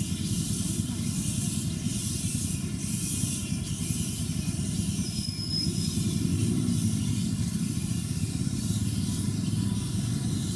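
Steady outdoor background rumble with a high hiss that swells and fades, and one brief high chirp about five seconds in.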